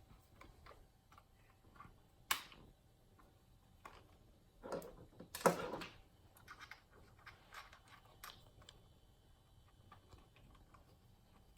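Small plastic RC-truck parts handled and fitted together: faint scattered clicks and taps, with a sharp click about two seconds in and a louder clatter of knocks around five seconds in.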